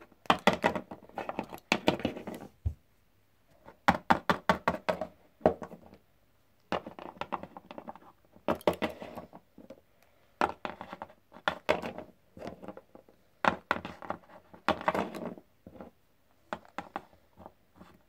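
Littlest Pet Shop plastic toy figurines tapped along a wooden shelf, hopped as if walking. The taps come in quick runs, about six bursts with short pauses between them.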